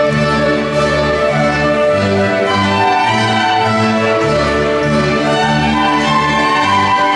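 Live instrumental music of a Polish Christmas carol (kolęda), led by violins over a low bass part that moves in steady steps.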